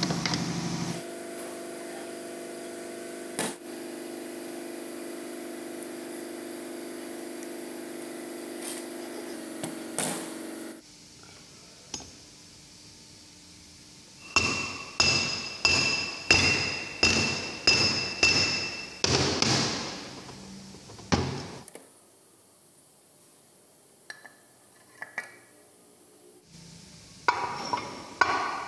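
Steady machine hum for about the first ten seconds. Then about nine ringing metallic knocks, under a second apart, as a steel pipe is rammed down over an induction motor's rotor shaft to drive the new bearing home. After a short quiet spell with a few light clicks, the knocking starts again near the end.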